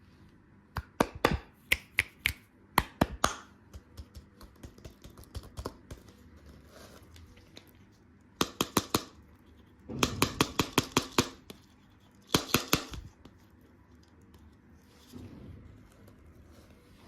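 Crunchy candy being bitten and chewed close to the microphone: crisp cracks and clicks that come in four short clusters, the densest a little past halfway.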